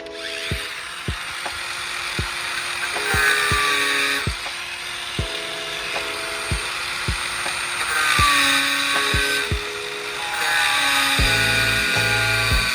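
A power tool running and whirring, rising in pitch several times as it speeds up, over background music with a steady beat.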